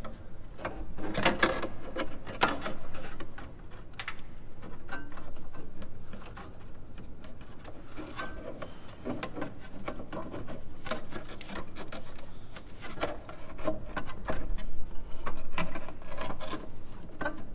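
Cobb intake airbox and filter being handled and fitted into place: irregular rubbing and scraping with light knocks.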